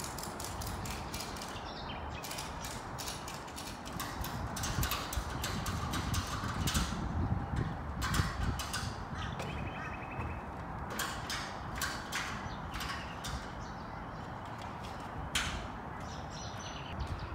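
Ratchet strap being cranked to tension a heavy PVC shelter cover: repeated runs of sharp clicks from the ratchet, some quick and some spaced out, over a steady background hiss.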